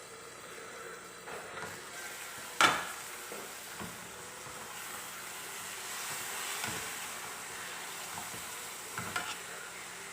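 Food sizzling and frying in a pan, a steady hiss, with one sharp loud knock a little under three seconds in and a few lighter clicks near the end.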